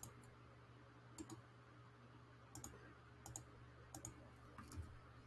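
Faint clicking at a computer: about six short clicks, most in quick pairs, roughly one a second, over a steady low hum.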